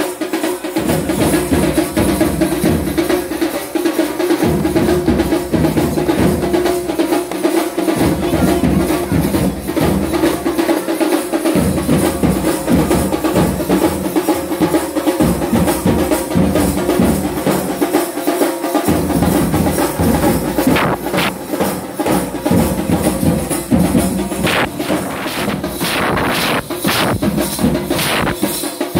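Children's marching band playing: drums and bass drum beating a steady rhythm under a held brass tone from euphonium-type horns, with metal hand shakers rattling along.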